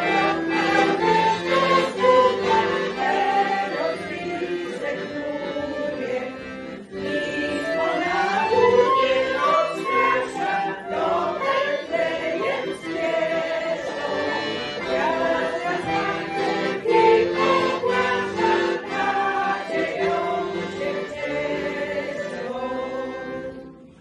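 Folk choir of mostly women's voices singing a Polish Christmas carol, accompanied by an accordion; the song fades out just before the end.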